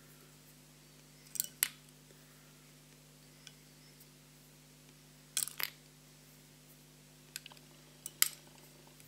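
Sharp clicks of small metal fly-tying tools, mostly in close pairs: about a second and a half in, at about five and a half seconds, and twice more near the end, over a faint steady hum.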